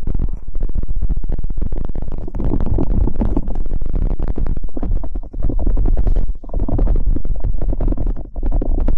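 Loud electronic background music with heavy bass and a crackly, distorted texture.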